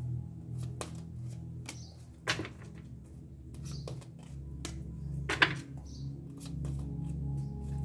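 A deck of divination cards being shuffled by hand: sharp slaps and snaps of the cards at irregular intervals, the loudest about two and a half and five and a half seconds in, over a low steady hum.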